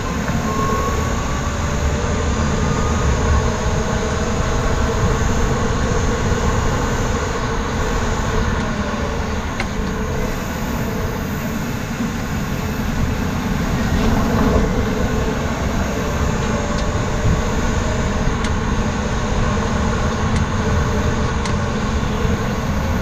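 Steady road and wind noise heard from under a moving car at its rear suspension: a continuous rumble of tyres on the road, with no engine note standing out.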